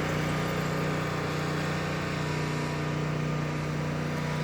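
Lawn mower's small petrol engine running steadily at an even speed, its pitch holding constant.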